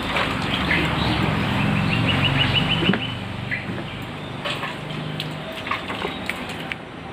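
Indian ringneck parrot giving short high chirps and a quick rattling call, about two seconds in, over steady background noise with a low hum.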